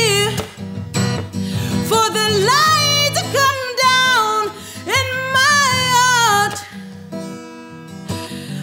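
A woman singing long, sliding wordless vocal lines over a strummed Yamaha acoustic guitar. The voice drops out about seven seconds in, leaving the guitar chords ringing on.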